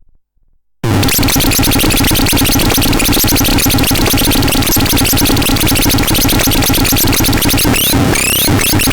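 Loud, dense electronic noise music that starts abruptly about a second in, a harsh synthesized texture with rapid fine pulsing and a few quick rising and falling sweeps near the end.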